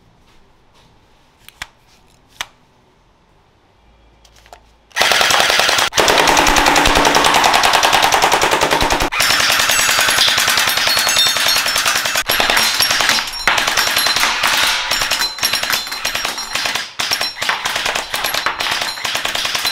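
HK416-style gel blaster firing full-auto: a long unbroken burst about five seconds in, then a string of shorter bursts with brief pauses. Before the firing there are only a few faint clicks of handling.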